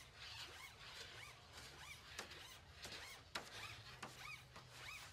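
Retrieval tool's thin shaft being pulled by hand out through an articulating guide tube, sliding against the tube with a series of faint short squeaks that rise and fall in pitch, about two a second. A single sharper click comes a little past halfway.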